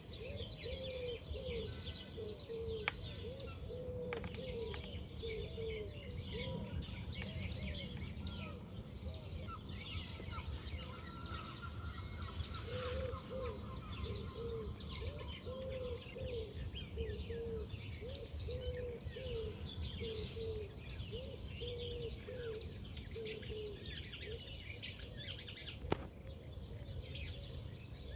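Birds calling: runs of short, low, arched notes repeated about twice a second, over higher chirps and twitters, with a low steady background rumble and a couple of sharp clicks.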